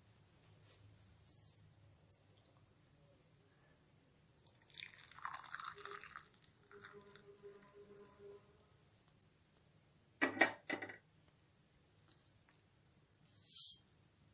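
A steady, high-pitched insect trill that pulses rapidly. About five seconds in there is a brief pouring or splashing sound, fitting the boiled herbal milk being strained, and two quick sharp knocks come a little after ten seconds.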